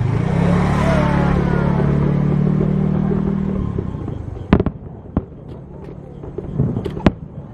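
Aerial fireworks: a steady low hum with a few short whistling glides in the first half, then sharp cracking bangs, two close together about four and a half seconds in, one more around five seconds, and a quick pair around seven seconds.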